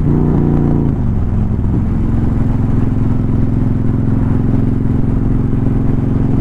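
Motorcycle engine running under way; its note drops and shifts in the first second or two, as when easing off or changing gear, then holds steady.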